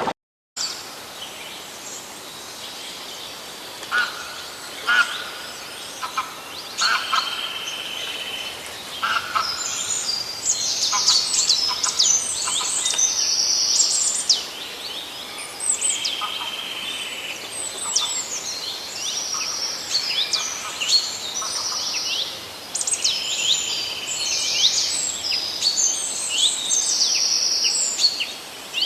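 Several birds calling and singing: many short high chirps, whistled notes and rapid trills, with some lower repeated call notes in between.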